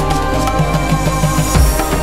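Background music with a steady beat over sustained chords, and a louder hit with a cymbal-like swell about a second and a half in.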